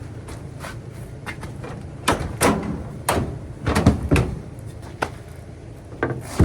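A series of sharp knocks and clunks from a dryer's sheet-metal cabinet and door being handled and shut as it is put back together, over a steady low hum.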